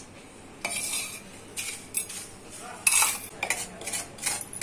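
Spatula scraping crumbly sugar tagar (boora) out of a nonstick kadhai into a steel bowl, with irregular scrapes and clinks of utensils against the pan and bowl starting just over half a second in.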